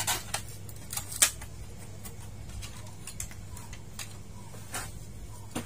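Light clicks and taps of hands handling parts on the plastic backlight tray of a dismantled LED TV, several in quick succession in the first second and a few scattered later, over a steady low hum.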